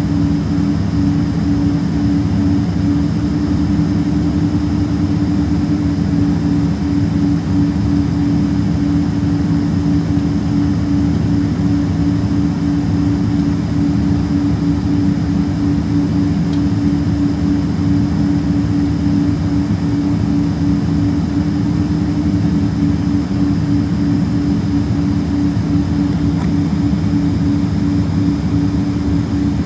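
Boeing 767-300ER's turbofan engines idling, heard from inside the cabin at a window seat: a steady hum with a constant droning tone.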